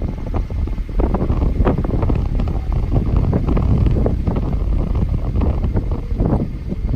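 Strong wind buffeting the microphone: a continuous, loud, low rumble with irregular gusty flutter.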